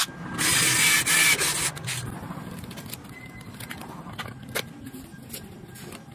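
Loud scraping noise from a tool working on the plastic rear bumper at the reflector opening, lasting about a second and a half. After it, only quieter handling clicks and rustles.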